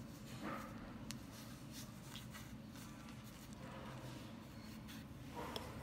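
Faint handling noises: fingers rubbing and small ticks and rustles as a fishing hook, line and round bait are handled, over a low steady hum.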